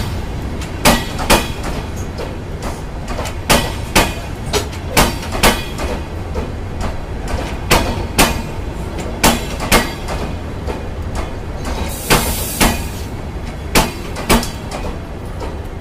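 Passenger train coaches rolling slowly past over a steady low rumble, the wheels clicking over rail joints in close pairs as each bogie goes by. A brief hiss comes about twelve seconds in.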